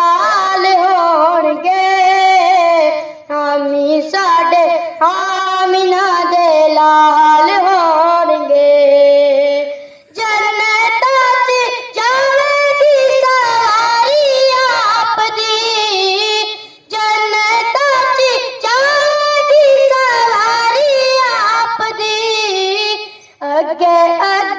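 A boy singing a Punjabi naat unaccompanied into a microphone, in long held, wavering phrases with brief pauses between them.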